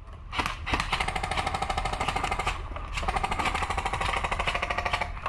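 Airsoft electric rifle firing on full auto: a rapid, steady rattle of shots over the whine of its motor and gearbox. A couple of single shots come first, and from about a second in the fire runs on without a break.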